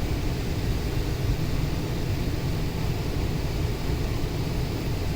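Central air conditioner's indoor air handler running: a steady low blower rumble with a rush of moving air.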